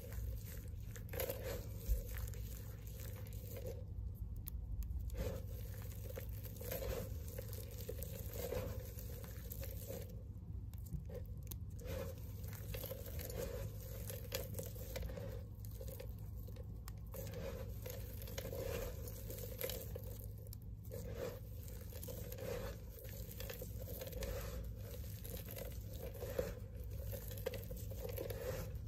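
Crumbled green and white bar soap crunching and crackling as hands scoop, squeeze and drop handfuls of the dry pieces back onto the pile. The swells come about once a second, with a few short pauses.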